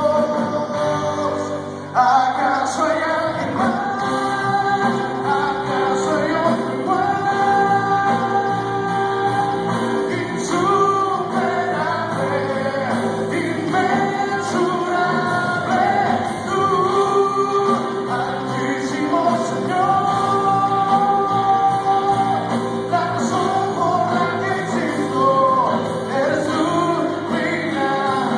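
Christian worship song performed live: a male lead vocal with acoustic guitar and band, played through a hall's PA speakers, with many voices singing along. The music grows fuller about two seconds in.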